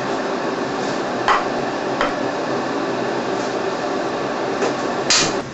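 Ceramic dinner plates clinking as they are handled and set down, four sharp knocks with the loudest near the end, over a steady background hum.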